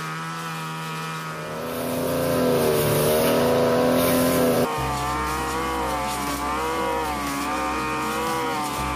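Backpack brush cutter's 42cc two-stroke engine running at high revs while its metal blade cuts through thick, long grass. The engine speeds up and gets louder about two seconds in. The sound changes abruptly about halfway through, then runs on steadily with a slightly wavering pitch.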